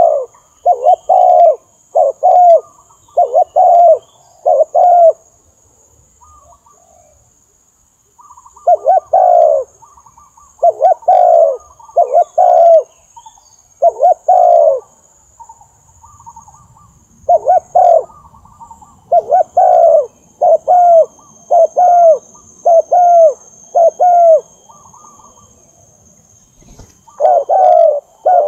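Spotted dove cooing: its territorial song, short hoarse coos in quick runs of several notes, separated by pauses of two or three seconds.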